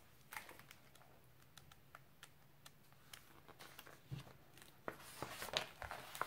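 Faint paper rustling and scattered light taps of a picture book's pages being handled, a little busier near the end.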